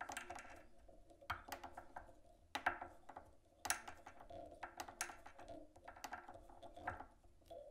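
Light clicking and ticking from fingers and tying tools handling material at a fly-tying vise, in small clusters of quick clicks about a second apart, as twisted peacock herl is wound onto the hook.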